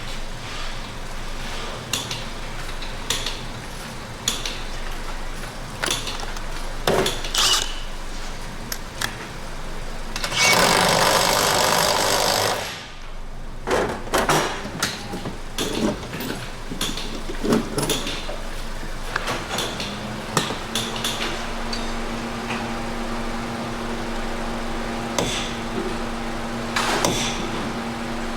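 Hand tools knocking and clanking on metal during work on a car's front axle, with a loud burst from an air tool lasting about two and a half seconds about ten seconds in. A steady low hum comes in about two-thirds of the way through.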